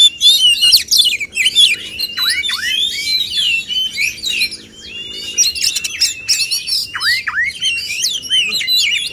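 Male Oriental magpie-robins (kacer) singing a loud, varied song: rapid chirps, sweeping whistles that dip and rise, and held trilling phrases, in a competitive song duel.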